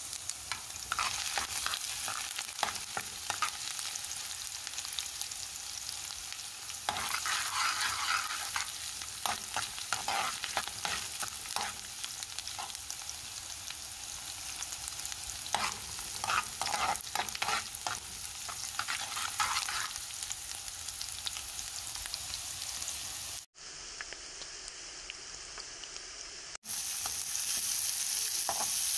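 Chopped ginger, garlic and green chili sizzling in hot sesame oil in a nonstick frying pan, a metal spoon stirring and scraping against the pan in sharp clicks. Near the end diced onion is in the pan and goes on frying as it is stirred.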